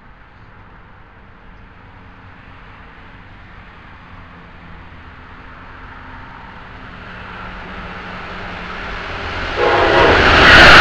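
Amtrak passenger train led by an ACS-64 electric locomotive approaching at speed: a rumble that grows steadily louder and jumps sharply near the end as the locomotive reaches the platform.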